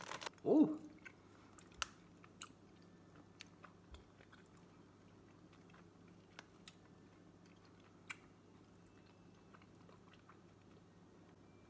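Quiet chewing of a sour gummy candy (Haribo Saure Pommes), with a handful of small scattered mouth clicks, over a faint steady low hum.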